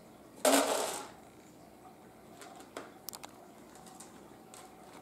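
Dry cat food rattling out of a plastic automatic pet feeder into its tray in one short rush about half a second in, knocked loose by a cat pawing at the outlet. A few light clicks follow.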